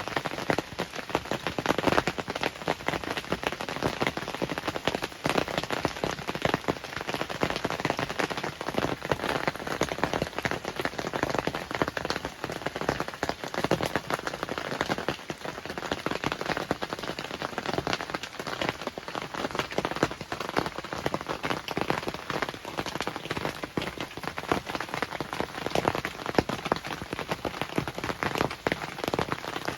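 Steady heavy rain: a dense, unbroken patter of drops striking a surface close at hand, most likely the roof of a hunting blind.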